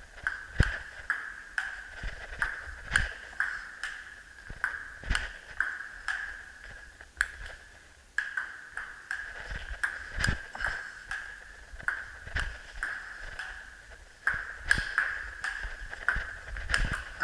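Table tennis rally: a celluloid-type ping-pong ball clicking off paddles and the table, many sharp hits at a quick, uneven pace.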